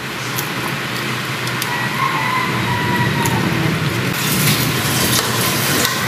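Sinigang broth boiling steadily in a stainless steel pot on the stove, over a steady low hum. From about four seconds in, a ladle stirs the soup, adding sloshing and light clinks against the pot.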